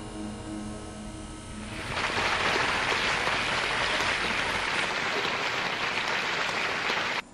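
The last held notes of a recorded song die away, then audience applause starts about two seconds in and runs on steadily until it is cut off abruptly near the end.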